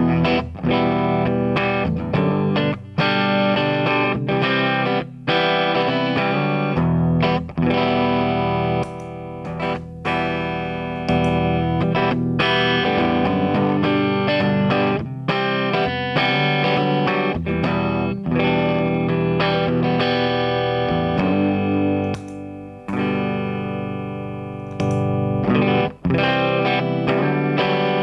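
Electric guitar played through a DIYGP 10 Minute Dirt & Boost, a dirty boost pedal, into an amplifier: chords struck again every second or two and left to ring, with short gaps between them.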